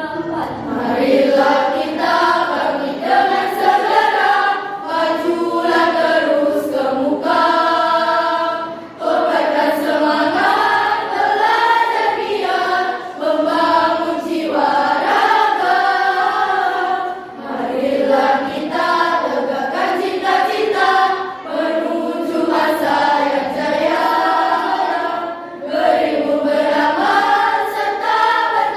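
School choir singing a song in parts, in phrases of a few seconds with short breaths between them.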